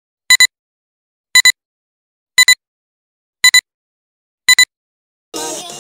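Film-leader countdown beeps: a short double beep once a second, five times. Music starts just before the end.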